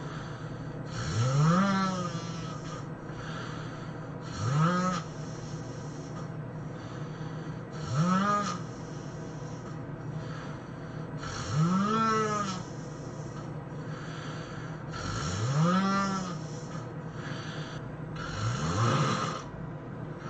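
A sleeping man snoring heavily, six snores about every three and a half seconds, each rising then falling in pitch, over a steady low hum.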